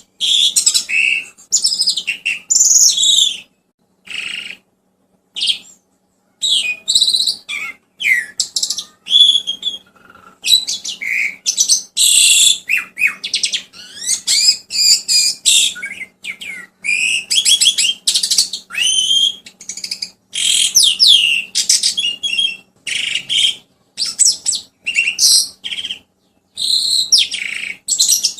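Songbird singing loudly in rapid chirps, trills and whistled glides, delivered in short bursts with a few brief pauses, over a faint steady low hum.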